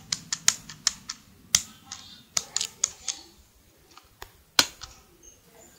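Keypad buttons tapped one after another while a purchase is totalled up: a run of sharp, irregular clicks, some in quick pairs, with a short pause about three and a half seconds in.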